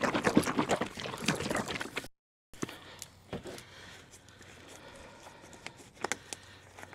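Handling noise: a plastic motor-oil jug is rustled and clicked as it is opened. After a brief break, fresh engine oil pours faintly from the jug into the engine's oil filler to refill it after the drain, with a few light knocks near the end.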